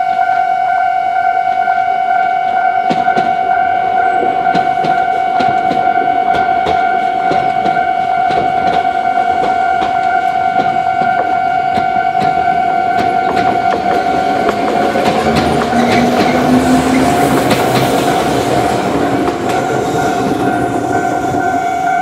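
Japanese railway level-crossing alarm bell ringing steadily while an Iyotetsu electric commuter train passes over the crossing. The train noise swells in the second half, with wheel clatter over the rails and a motor whine rising in pitch.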